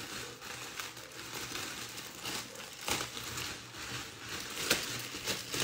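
Clear plastic bag crinkling and crackling irregularly as it is handled and pulled open to unwrap a handbag.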